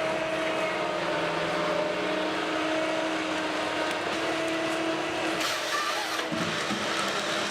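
Heavy forestry machine running with a steady engine and hydraulic drone. About five and a half seconds in, a short burst of noise comes as the drone drops in pitch.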